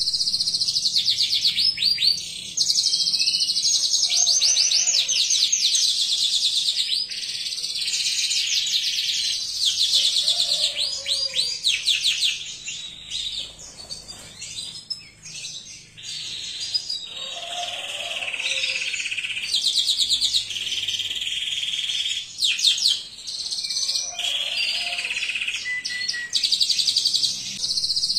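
Domestic canary singing a long, nearly unbroken song of fast rolling trills and chirps, easing off briefly about halfway through.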